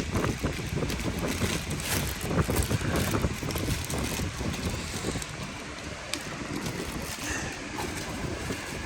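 Cardboard and plastic packaging rustling and knocking as it is handled, with low rumbling handling noise on the microphone; busier in the first half, quieter after about five seconds.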